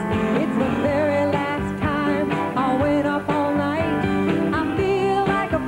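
Live country band performance: a woman sings lead over electric bass and guitar accompaniment.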